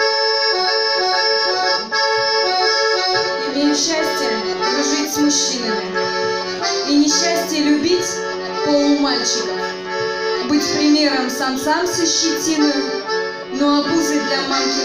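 Piano accordion playing an instrumental introduction: a long held chord at first, then, about three and a half seconds in, a bass line and a rhythmic melody join in.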